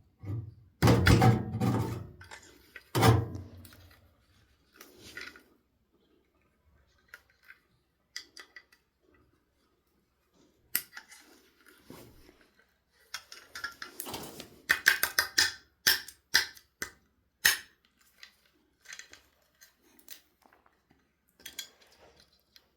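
Hard drive part being broken up by hand with tools: irregular sharp clicks, scrapes and small metal clatters in two busy bursts, the first right at the start and the second in the latter half, with quiet gaps between.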